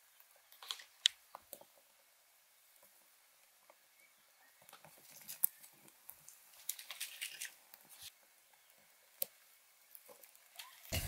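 Small kindling fire of dry grass and twigs catching, with scattered faint crackles and sharp snaps and a denser run of crackling about seven seconds in, along with twigs rustling as they are handled.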